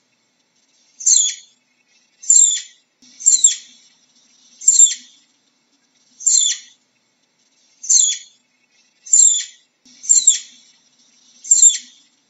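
Flying squirrel giving a series of high-pitched calls, each sliding down in pitch over about half a second, nine in all, about one every second or so.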